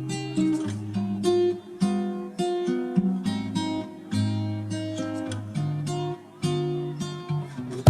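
Background music: acoustic guitar playing picked and strummed notes.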